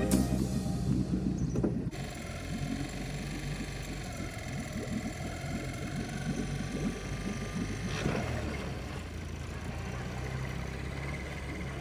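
A motor engine running steadily, with music playing over the first two seconds.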